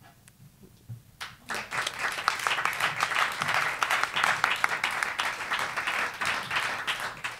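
A hushed pause with a few lone claps, then an audience breaks into applause about a second and a half in, and it keeps going steadily.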